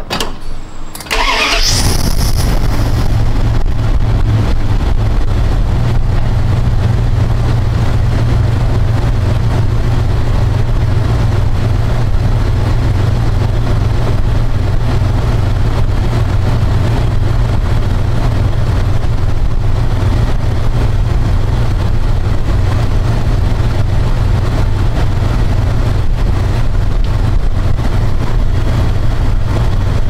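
Square-body Dodge Ram W150 pickup engine cranking briefly and catching about a second and a half in, then running at a steady idle. This is a first start after a crank-no-start fault in the relay and fusible-link wiring.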